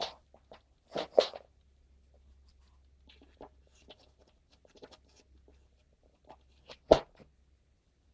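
Handling noise from a calculator's power cord and plug being moved about: a couple of knocks about a second in, scattered faint clicks and rustles, and one sharp knock near the end, over a steady low hum.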